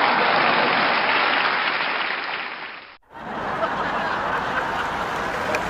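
Audience applauding; the clapping fades out about three seconds in, and after a brief gap a second burst of applause starts, brighter and wider in sound.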